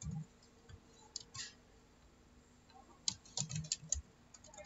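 Computer keyboard keystrokes: a few scattered key taps, then a quick run of keys about three seconds in.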